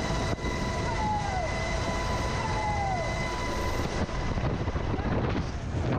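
UH-60 Black Hawk helicopter heard from inside its open cabin door: loud rotor and engine noise with a high steady whine. About four seconds in the whine fades away as the jumper drops clear of the helicopter, leaving wind rushing over the microphone.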